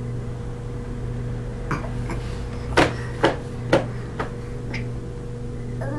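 A series of about seven sharp knocks, the middle three loudest and about half a second apart, over a steady low electrical hum.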